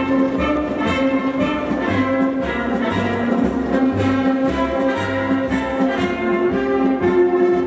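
Orchestral music with brass, playing held chords over a bass line that moves in short separate notes.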